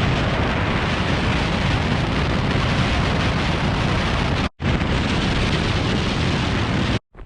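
Wind noise on the microphone during a snowboard run down a slope: a loud, steady rush, heavy in the lows. It breaks off sharply for an instant about four and a half seconds in.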